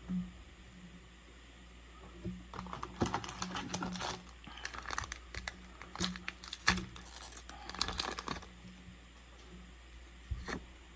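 Foil trading-card booster pack wrapper being crinkled and torn open, in irregular crackly bursts over several seconds.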